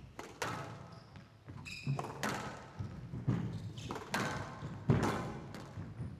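A squash rally: the rubber ball is struck hard by the rackets and slams into the walls of a glass court, about once a second, each hit ringing briefly in the hall. Court shoes squeak shortly before two seconds in.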